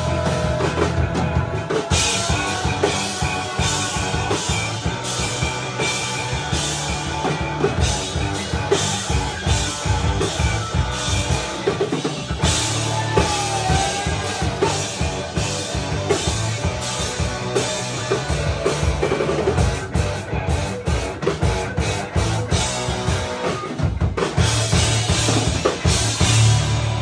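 Live rock band playing at full volume: a drum kit hit hard and fast under an amplified electric guitar.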